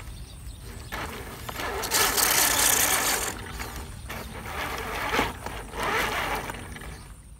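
Radio-controlled truck driving through grass, its electric motor and gears whirring in surges with a rustling hiss, loudest about two seconds in and again near six seconds.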